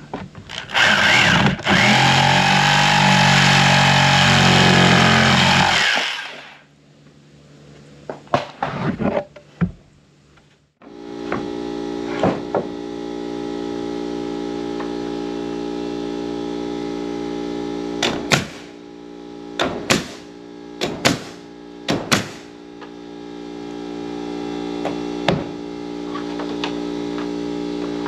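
A corded jigsaw runs loudly for about five seconds, cutting along the edge of a slab board. Then an air compressor drones steadily while a pneumatic nail gun fires several sharp shots, driving nails into slab boards.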